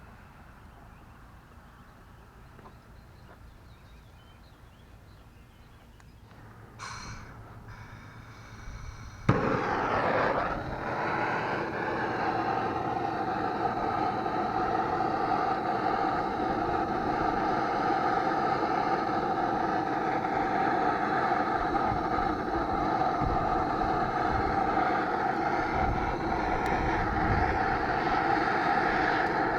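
A machine starts abruptly about nine seconds in and then runs steadily and evenly, with a constant pitched hum.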